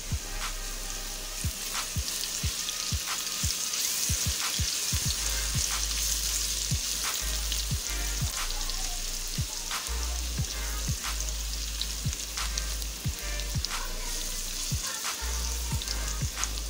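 Sliced onions and ginger-garlic paste sizzling in hot oil in a steel pan, with a steady hiss. A silicone spatula stirs and scrapes through them, making frequent light clicks against the metal.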